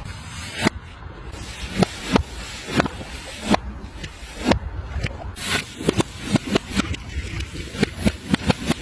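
Glass bottles shattering one after another on a spiked board: sharp cracks and crunches about once a second, coming faster and closer together from about six seconds in.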